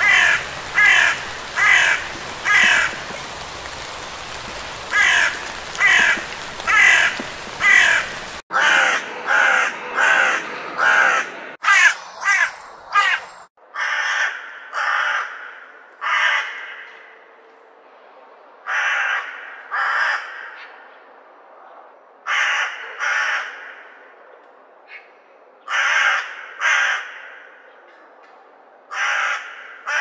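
Crows cawing: a fast run of harsh caws, roughly two a second, over a background hiss, then, after a few abrupt cuts, caws in groups of two or three separated by quiet gaps of a few seconds.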